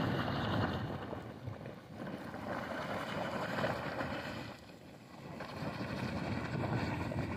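Wind buffeting the microphone, a rumbling, gusting noise that eases off for about a second midway and then picks up again.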